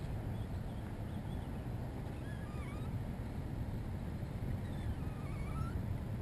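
Steady low rumble of wind on the microphone over open water, with faint bird calls of short sliding chirps about two seconds in and again about five seconds in.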